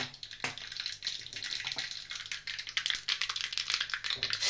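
Hot ghee tempering in a small iron ladle crackling and spluttering, with mustard seeds, cumin and curry leaves popping as fast irregular clicks.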